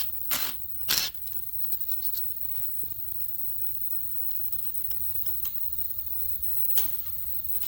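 Two short hissing bursts about a second apart, then scattered light clicks and taps of engine parts being handled, with one sharper click near the end, over a low steady hum.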